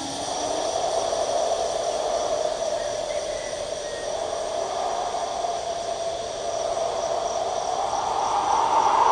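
A distant, wavering siren-like wail that climbs in pitch near the end, over the steady chirring of evening insects.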